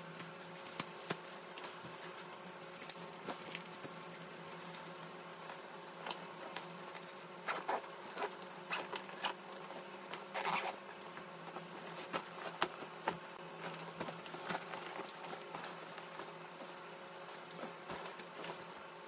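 Adidas 4ATHLTS duffel bag being handled, with zippers drawn in short scratchy runs and its fabric and straps rustling. The runs come in irregular spurts, busiest around the middle.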